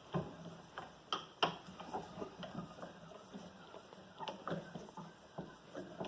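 Rock Island 597 six-inch bench vise being cranked by its handle, the screw turning with a faint rubbing and scattered light clicks and knocks, a few of them sharper.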